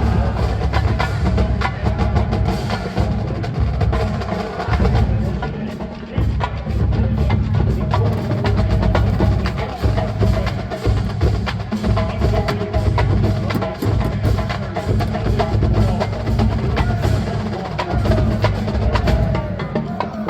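Marching band drumline playing a cadence: snare and bass drums with many sharp stick and rim clicks, loud and continuous.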